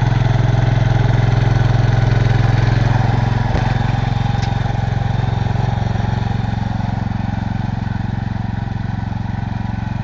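1967 Cub Cadet 122 garden tractor's single-cylinder Kohler engine running steadily under a front loader, easing a little in level in the second half. A single faint knock comes about three and a half seconds in.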